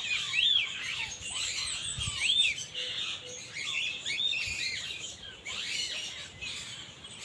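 Birds chirping: many short, high, overlapping chirps that keep coming, some rising and falling in pitch.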